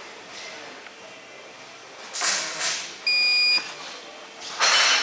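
Uninterruptible power supply (UPS) in a control panel beeping on battery power after mains power to the panel is cut. It gives one short high beep about three seconds in, and beeps again every few seconds. Two brief bursts of noise, one before the beep and one near the end, are as loud as the beep.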